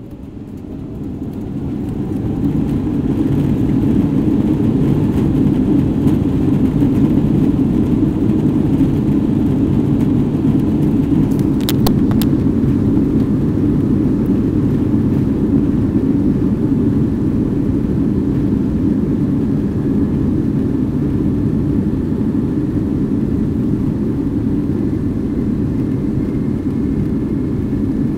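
Boeing 777-300ER's GE90-115B engines heard from the cabin, spooling up to takeoff thrust: a rising whine and a swelling noise over the first few seconds, then a steady loud low rumble as the airliner accelerates down the runway.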